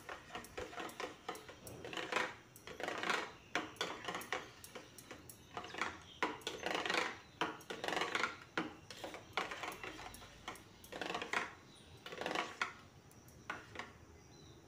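Metal spoon stirring thick semolina (sooji) batter in a stainless steel bowl: a steady run of scraping strokes and clinks of spoon against the bowl.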